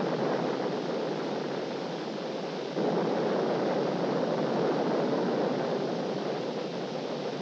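Static test firing of the Saturn V second stage's five-engine cluster of liquid-hydrogen J-2 rocket engines: a steady, dense rushing rumble with no pitch to it, which steps up in level about three seconds in.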